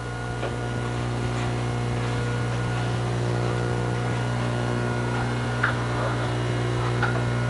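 Steady low electrical hum with a stack of overtones, with a couple of faint clicks in the second half.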